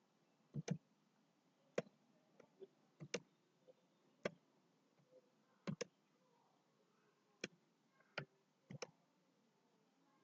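Computer mouse clicking: about a dozen short, sharp clicks at irregular intervals, some in quick pairs, as points are marked on a chart.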